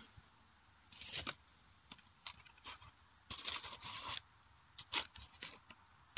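Matches being struck on a matchbox to light a wood fire: a few short dry scratches, the longest about three and a half seconds in, with small clicks between.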